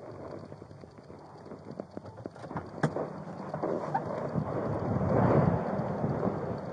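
Rustling and knocking against a body-worn camera's microphone: scattered clicks, a sharp knock just before three seconds in, and louder rubbing noise around five seconds in.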